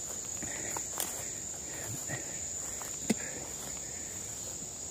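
A steady high-pitched insect chorus, with faint rustling footsteps through tall grass. Two sharp clicks come about a second in and about three seconds in, the second one louder.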